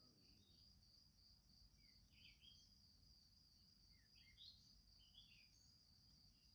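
Near silence: faint scattered bird chirps, several short calls, over a faint steady high-pitched whine.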